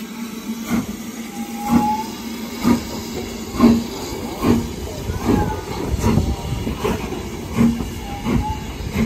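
Steam locomotive, a BR Standard Class 4 4-6-0 No. 75069, moving slowly past at close range. A regular thump comes a little faster than once a second over a steady hiss of steam and rolling rumble, with a brief faint squeal near the start.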